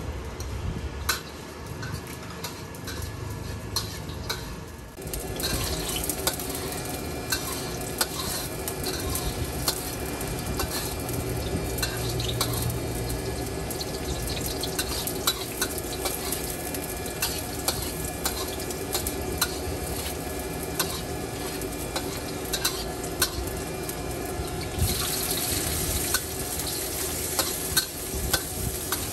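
Noodles stir-frying in a wok: a steady sizzle with a metal spatula clanking and scraping against the pan in quick, irregular strikes. The sizzle grows louder about five seconds in and brighter again near the end.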